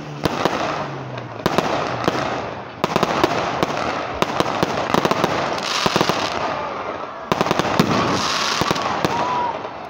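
Aerial fireworks bursting in rapid succession: a continuous barrage of sharp bangs with crackling between them.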